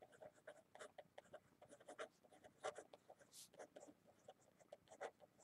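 Faint scratching of a pen writing on paper: a quick, irregular run of short strokes as words are handwritten.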